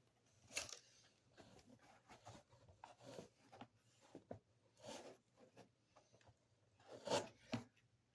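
Faint, scattered rustling and scraping of packing material and cardboard as a shipping box is unpacked, in short separate bursts.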